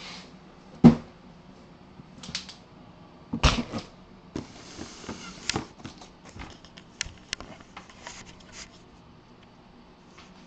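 Handling noise: scattered knocks, clicks and rustles of things being moved about on a desk, the loudest a single thump about a second in.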